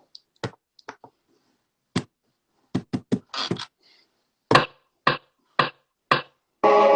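Scattered short knocks and taps, then four evenly spaced taps about two a second. Near the end a beat starts playing loudly.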